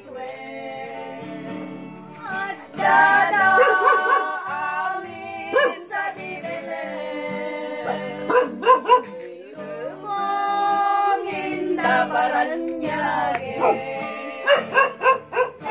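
A group of women singing a Christmas carol in Ilokano to a strummed acoustic guitar. A few sharp, loud sounds cut in, twice about midway and several times near the end.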